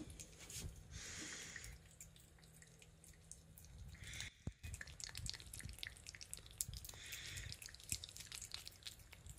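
Cat licking a lickable liquid treat from a squeeze pouch: fast, wet tongue clicks and smacks, faint, with a few soft breathy sniffs in between.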